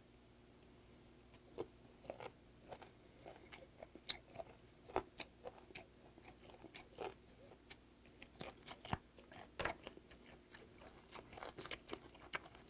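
A man chewing a piece of fermented skate close to the microphone: irregular mouth clicks, starting about a second and a half in and coming faster toward the end.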